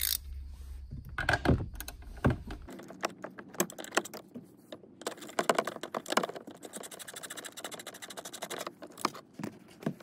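A few handling knocks, then a socket wrench's ratchet clicking in quick runs as a 10 mm bolt is loosened.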